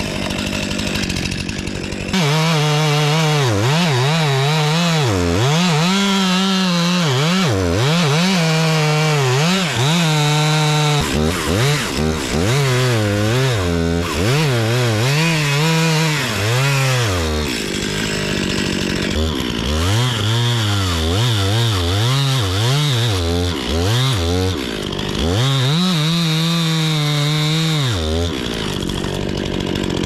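Stihl top-handle chainsaw at full throttle, cutting through a poplar trunk. Its engine note rises and falls continuously as the chain loads up in the cut, with a few brief drops along the way, and it eases off near the end as the top comes free.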